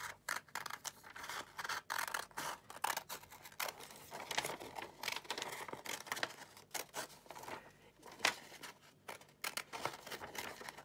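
Scissors cutting through a folded sheet of paper, in a run of short, irregular snips.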